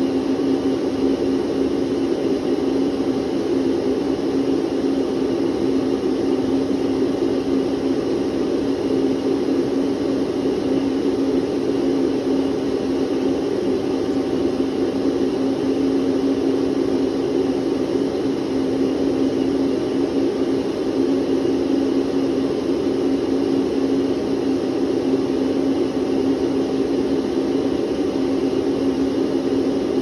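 Electric vacuum cleaner running steadily: an unchanging motor hum over a constant rushing noise.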